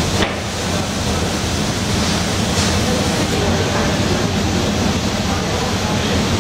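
Steady, loud industrial roar of a glassblowing workshop floor, with a low hum under it.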